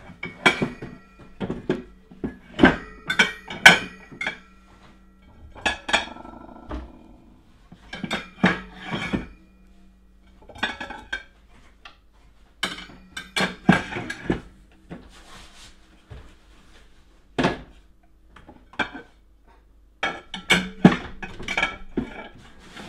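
Large dinner plates being set upright one by one into a pot-lid rack in a cupboard, clinking against each other and the rack in irregular clusters of knocks with short pauses, some knocks ringing on briefly.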